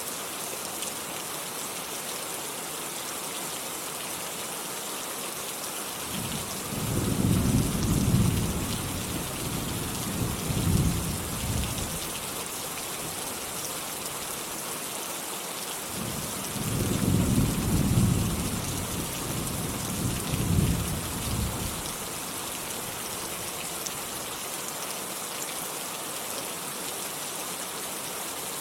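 Steady rain falling, with two long rolls of thunder rumbling low, about six seconds in and again about sixteen seconds in, each lasting some six seconds.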